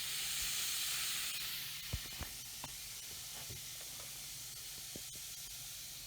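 A fizzing toy egg dissolving in a bowl of water gives a steady high hiss of bubbles. It is loudest for the first second and a half, then a little fainter. A couple of faint clicks come about two seconds in.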